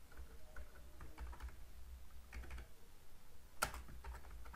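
Computer keyboard being typed on: faint, irregular keystrokes, with one louder key press about three and a half seconds in.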